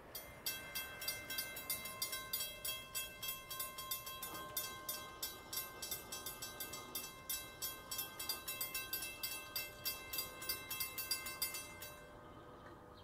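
Railroad grade-crossing bell ringing rapidly and evenly, about four strokes a second, warning of an approaching train as the crossing gates lower. It starts just after the beginning and stops about a second before the end.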